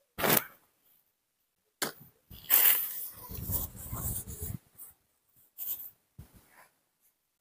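Intermittent rustling and scuffing handling noises, the longest lasting about two seconds in the middle, from a tissue and clothing being handled close to the microphone while a baby macaque clings to a shirt.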